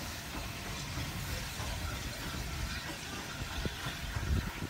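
Steady low rumble of railway locomotives, with two light knocks near the end.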